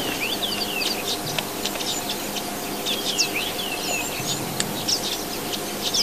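Birds chirping and twittering: a busy run of quick, high, falling notes, with a faint steady low hum underneath.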